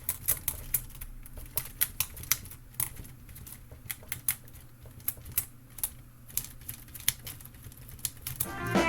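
Wooden ROKR LK703B model typewriter being typed on: irregular sharp clacks of the keys and type bars, about three or four a second, over a faint low hum.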